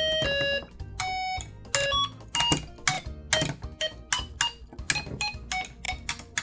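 Snap Circuits music IC playing its electronic tune through the small speaker, cutting off about half a second in, with one more short note a moment later. This is followed by a string of irregular clicks and short pinging tones.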